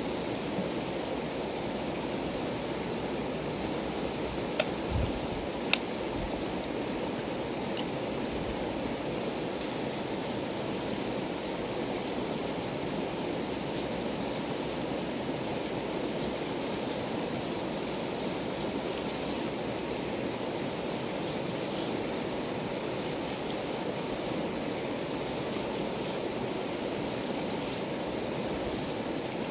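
Steady rushing of a river running close by, with two brief clicks about five seconds in.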